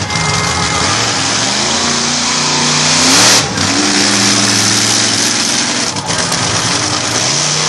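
Monster truck engine revving hard as the truck drives on dirt: the pitch climbs to a peak about three seconds in, drops off for a moment, then rises again and is held high.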